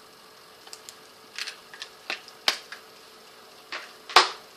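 Clicks and taps of plastic makeup palette cases being handled, snapped shut and set down. There is a scatter of light clicks about a second in, a sharper one around two and a half seconds, and the loudest knock a little after four seconds.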